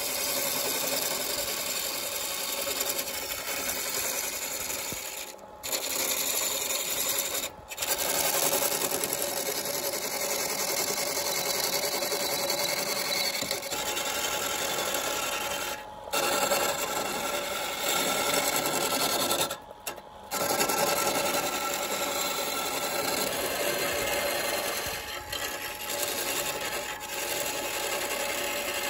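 Turning tool cutting a spinning wooden blank on a wood lathe: a steady scraping, shaving noise, broken a few times by brief gaps where the tool comes off the wood.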